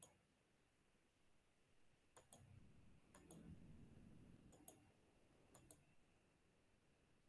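Near silence broken by faint computer mouse clicks: a single click at the start, then four quick pairs of clicks spread over the next few seconds.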